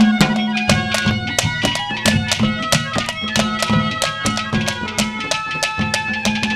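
Instrumental interlude of Haryanvi ragni folk music: held melody notes over a fast, steady drum beat.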